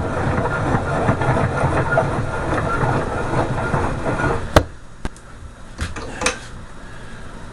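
Copper bars being worked off a starter motor armature with pliers: steady metallic scraping and rattling for a few seconds, then one sharp snap followed by a few lighter clicks.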